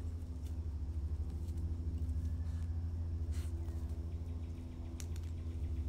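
A steady low hum, with a couple of faint clicks over it.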